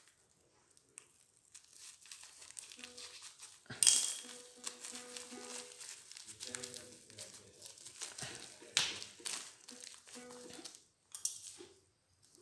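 Plastic packaging crinkling and rustling as hands pull and tear at a plastic-wrapped parcel, with sharp loud crackles about four and nine seconds in. Faint music plays in the background.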